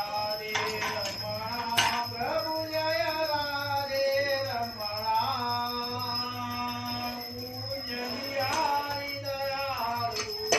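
A voice singing a slow melody with long held notes that bend in pitch, with a sharp click about two seconds in and a steady thin high-pitched whine underneath.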